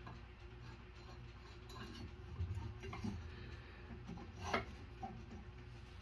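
Faint, scattered metal clicks and light knocks as a steel hex bit extension and crank handle are fitted into a ratchet-strap spinner roller, the loudest about four and a half seconds in.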